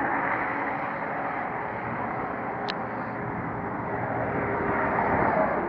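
Steady roar of road traffic passing on the bridge, with a short high tick about two and a half seconds in.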